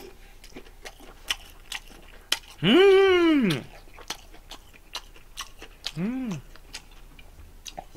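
Close-up mouth sounds of chewing and slurping chewy jjolmyeon noodles: many small wet clicks and smacks. Twice a pitched voice sound rises and falls in pitch, a long one about three seconds in and a short, fainter one near six seconds.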